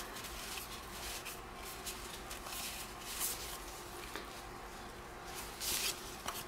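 Cardboard baseball trading cards being flipped and slid against one another in the hands: a few soft papery swishes and rustles, the clearest about three seconds in and near the end.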